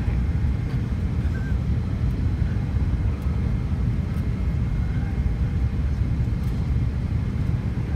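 Cabin noise inside a McDonnell Douglas MD-88 airliner on final approach: a steady low rumble of its two tail-mounted Pratt & Whitney JT8D turbofans and the airflow past the fuselage.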